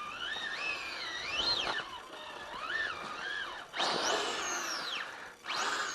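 Hobbywing Fusion Pro 2300kV brushless motor in a 1/10-scale RC truck whining as the throttle is worked, its pitch rising and falling several times. About four seconds in comes a louder, higher-pitched burst at full speed.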